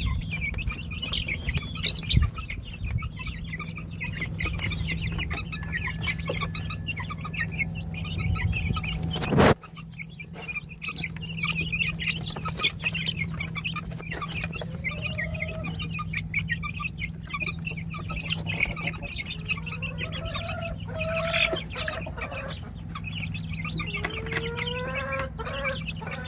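A flock of month-old chicks peeping continuously in high, rapid chirps, with some lower, longer calls joining in near the end. A loud knock about nine seconds in, over a steady low hum.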